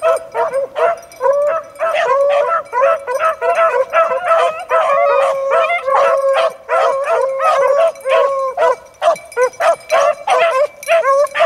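A pack of beagles baying on a rabbit's trail, several hounds giving voice at once in a continuous chorus. Long drawn-out bawls are mixed with short, quick chop barks: the sound of a pack running a rabbit.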